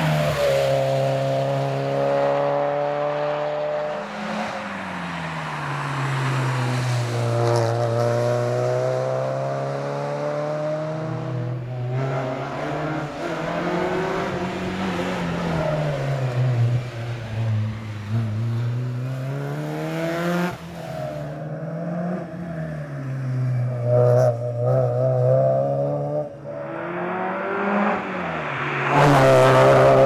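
Porsche 968 CS's 3.0-litre four-cylinder engine revving hard as the car drives past at speed. The pitch climbs and drops again and again through gear changes and lifts, and the loudest pass comes near the end.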